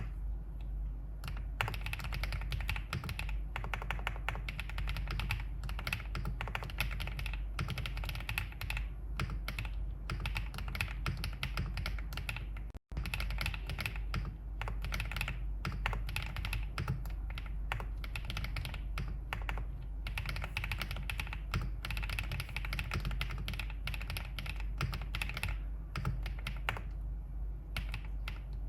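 Steady, fast typing on a Wave75 mechanical keyboard with an anodised-silver aluminium case and 青竹 (Qingzhu) switches: a dense, continuous run of keystroke clacks, broken once by a split-second dropout a little before the middle.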